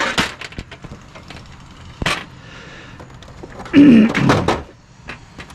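Knocks and clunks of a discarded plastic dehumidifier being handled, with a loud scraping clatter about four seconds in.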